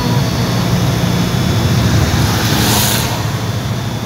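Steady low rumble of engine and road noise from a vehicle driving at speed on an expressway, with a brief rushing hiss about two and a half seconds in as a van overtakes close alongside.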